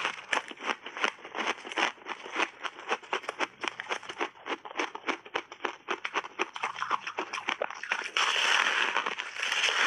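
Close-up chewing of crunchy frozen passionfruit ice dusted with matcha powder: a fast, dense run of crisp crackling crunches, then about eight seconds in a big bite into the ice block gives a longer, louder crunch.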